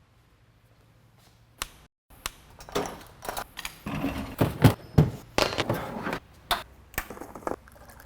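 A string of sharp knocks and clattering handling sounds, irregular and closely spaced, after about a second and a half of near silence.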